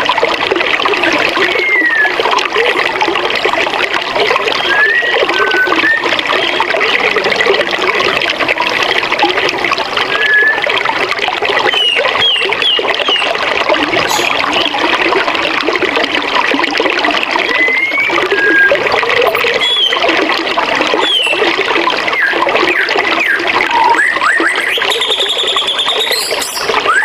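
Forest river water rushing steadily, with birds calling over it in short chirps every few seconds and a longer rising call near the end.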